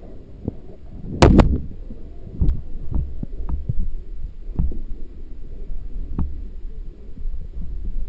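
Irregular dull thumps and knocks over a low rumble, with one sharp loud knock about a second in. This is handling noise from an action camera's housing being bumped and jostled while an inflatable catamaran is manhandled at the riverbank.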